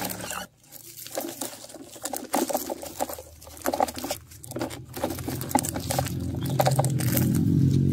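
Plastic toy trucks handled and rolled over grit and a plastic tarp: irregular small clicks, scrapes and rustles. A low droning hum builds up in the second half.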